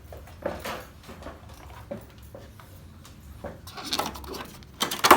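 Plastic clicks and knocks from the locking clips and casing of a split air conditioner's indoor unit being worked loose by hand, with a louder clatter near the end.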